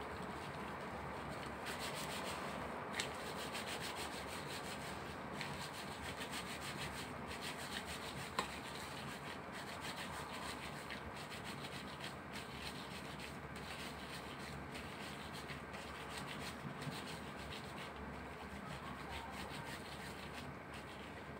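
Gloved hands rolling minced meat into balls between the palms: a continuous rubbing of thin disposable gloves against each other and the meat, with a couple of short clicks.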